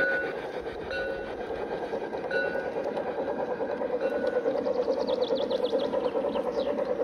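G-scale garden railway model train running along its track, the motor and gears humming steadily and growing a little louder as it comes on.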